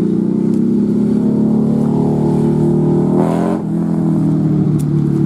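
Motorcycle engines running loudly as the bikes ride past on the road. The engine note breaks a little over three seconds in and settles lower.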